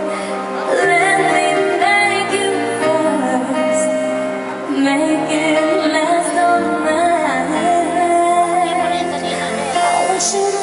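Live pop music: a woman singing over a backing band, heard in a large hall.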